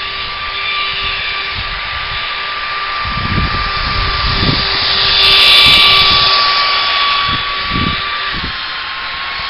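Electric ducted fan of an RC jet car, driven by a 500 W brushless motor, running with a steady high whine and rushing hiss. It swells louder about halfway through, and the pitch drops slightly near the end.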